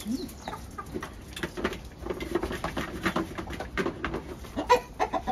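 Chickens clucking in short low calls, over irregular clicks and scrapes on gravel.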